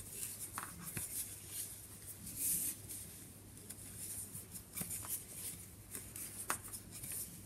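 Faint hand-knitting sounds: wooden knitting needles clicking lightly against each other and chunky wool yarn rustling as stitches are knitted, with a few sharper clicks scattered through.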